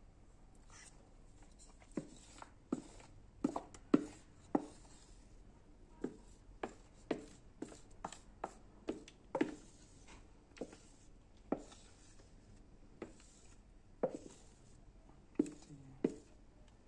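Irregular knocks and scrapes of a utensil against a mixing bowl as thick chocolate-chip cake batter is scraped out into a parchment-lined air fryer basket, a few dozen taps in all.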